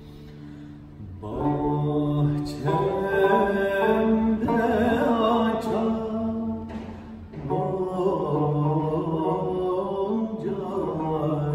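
A man singing a Turkish classical şarkı in makam Suzinak, accompanied by a plucked Turkish tanbur. The instrument holds a note alone for about the first second before the voice comes in, and the voice breaks off briefly past the middle before carrying on.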